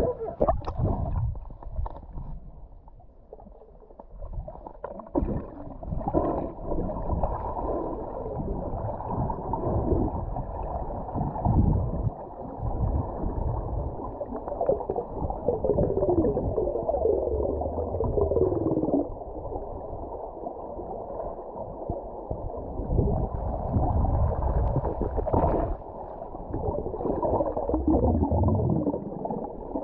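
Muffled underwater sound of a river picked up by a submerged camera: low rumbling water movement and gurgling bubbles that surge and fade unevenly.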